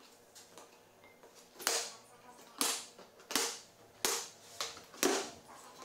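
A run of sharp plastic snaps, about one a second, as the zip ties holding a plastic storage tote's lid shut are cut off.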